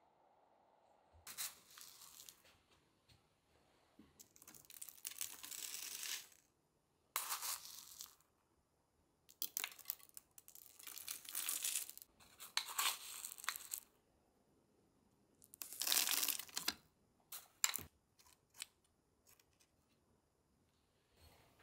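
Small river gravel poured into a narrow gap inside a glass tank, rattling and trickling against the glass and stone tiles in several bursts of a second or two. Near the end come a few single light clicks of stones being nudged.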